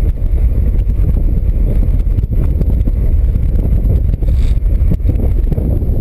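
Wind rumbling on the microphone of a camera carried aloft by a helium balloon: a loud, steady low rumble.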